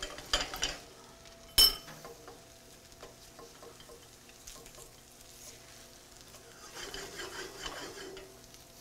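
A utensil stirring and scraping a ramen-noodle-and-egg mixture in a frying pan over a gas flame, with faint sizzling. A single sharp clack about a second and a half in is the loudest sound, and the stirring picks up again near the end.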